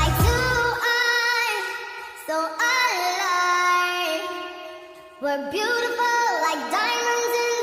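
A song with a high female singing voice. The bass and beat drop out about a second in, leaving the voice over light backing, with a short dip in loudness near the middle.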